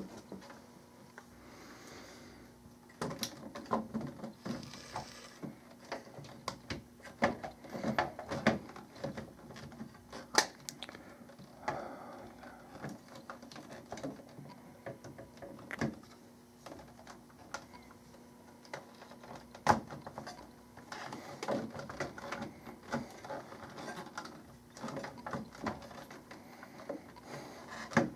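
Hands handling sealed lead-acid batteries in a metal UPS battery cartridge: irregular clicks, knocks and scrapes as batteries are shifted in the tray and wire connectors are worked on and off their terminals, the sharpest knocks about ten and twenty seconds in. A faint steady hum runs underneath.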